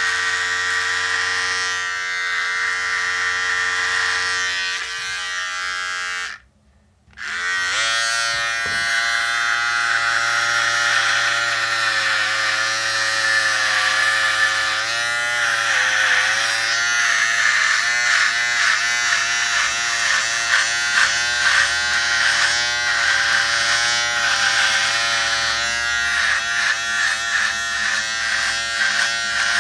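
Electric razor buzzing steadily. It cuts out for about a second about six seconds in and starts again, and through the second half its pitch wobbles up and down repeatedly, as the cutter meets load during shaving.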